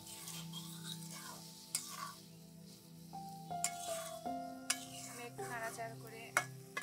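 Long metal spatula stirring chopped yardlong beans as they fry in an aluminium kadai, with a soft sizzle. The spatula scrapes and knocks sharply against the pan a few times.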